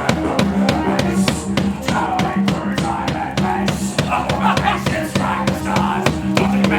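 A live band plays an instrumental passage: a drum kit keeps a fast, steady beat over a sustained low bass line.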